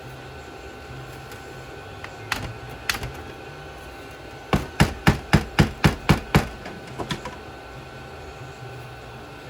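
Hammer blows on the seized parts of an ATV's cast-aluminium axle carrier, struck to free parts stuck together. Two single knocks, then a quick run of about eight blows at roughly four a second, then two light taps.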